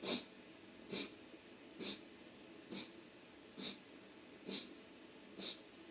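Kapalbhati breathing: seven short, forceful exhalations through the nose, evenly paced at about one a second, the slow beginner's rhythm of the practice.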